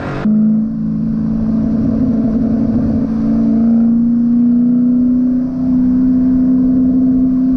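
A 2012 Ford Boss 302 Mustang's 5.0-litre V8 pulling hard under acceleration, its exhaust note a loud steady drone that climbs slowly in pitch as the revs rise, with a brief dip about five seconds in.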